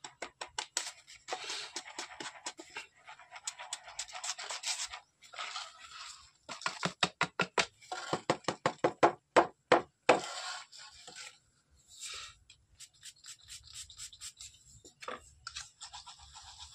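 Damp firework star pellets being swirled and rolled in a cup and a small bowl: a rapid rubbing, rattling scrape in rhythmic strokes. The strokes are loudest and sharpest, about five a second, through the middle. This is the stars being rolled in composition powder to coat them and build them up in size.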